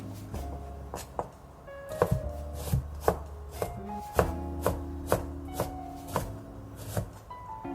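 Kitchen knife chopping raw bellflower (doraji) root on a cutting board, in steady strokes about two a second.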